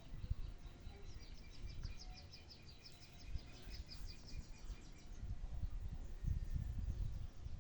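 A small bird calling in a rapid series of short, high chirps that lasts a few seconds and then stops, over a low, uneven rumble.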